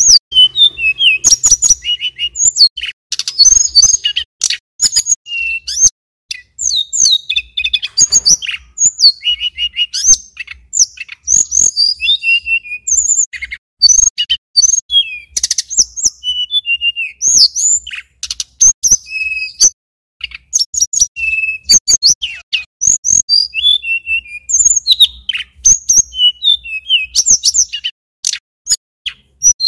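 Male tledekan gunung (sulingan gunung) songbird singing continuously. Rapid runs of sharp chirps and trills alternate with clear whistled notes, with only short pauses between phrases.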